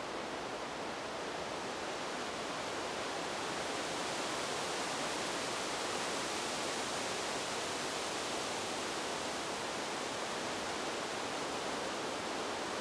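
Wind blowing through trees: a steady rushing of leaves and branches that swells a little in the middle as a gust comes through.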